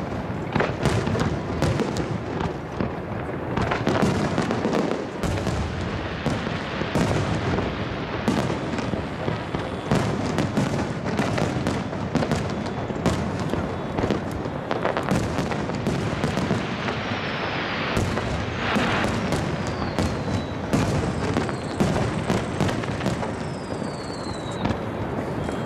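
Aerial firework shells bursting in quick succession, dense overlapping booms and crackles echoing off the mountains around the bay. A few high falling whistles sound in the second half.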